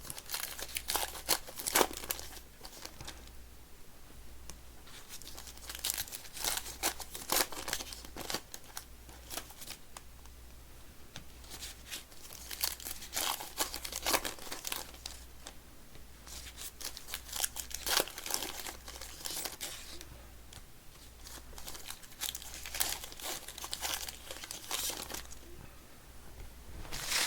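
Plastic trading card pack wrappers being torn open and crinkled by hand, in several bursts of crackling separated by short pauses.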